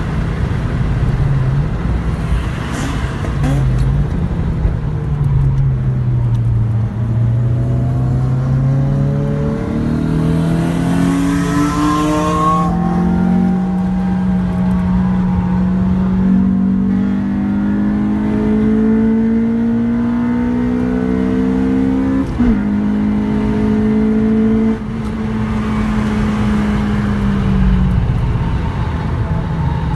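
Honda Civic Type R (EP3)'s 2.0-litre four-cylinder i-VTEC engine heard from inside the cabin while being driven hard on track. The engine note falls over the first several seconds, then climbs slowly and steadily in a long pull under load, and drops away near the end as the driver lifts.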